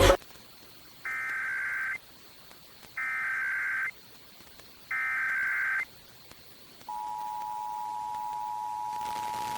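Emergency Alert System activation over radio: three one-second bursts of the digital SAME header data, about a second apart, then the steady two-tone EAS attention signal starting about seven seconds in.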